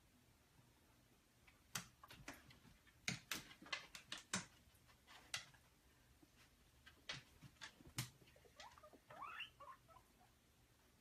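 Guinea pigs moving about in their cage: scattered faint clicks and rustles, with a short, high, wavering squeak about nine seconds in.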